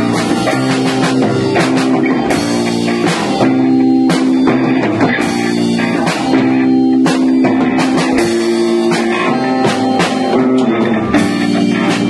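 A rock band playing live in a room: amplified guitar holding chords and changing them every second or two, with drums and frequent cymbal hits.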